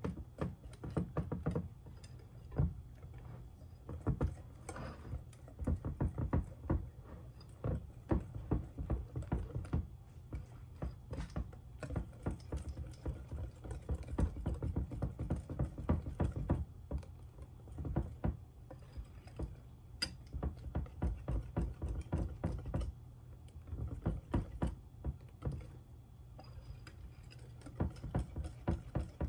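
Wire whisk beating a thin egg-and-flour batter in a glass bowl: a rapid, uneven run of clicks and taps as the wires strike the glass, with the wet slap of the batter.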